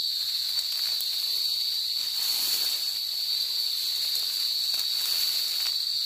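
Cicada singing: a steady, high-pitched unbroken buzz. Dry grass rustles briefly about two seconds in.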